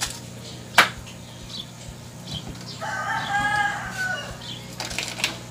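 A rooster crows once, about three seconds in: one call of about a second and a half that drops in pitch at the end. Earlier, about a second in, there is a single sharp click.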